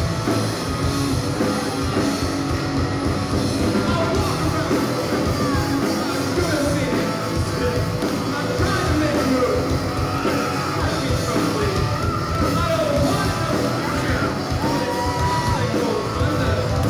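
Live amateur rock band playing loud drums and electric guitar, with a singer coming in a few seconds in.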